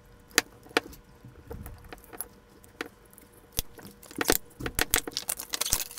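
Scalpel slitting the blue plastic sleeve on an aluminium electrolytic capacitor can, then the sleeve being peeled off: scattered clicks and scrapes, turning to a dense run of crackling near the end as the sleeve comes away.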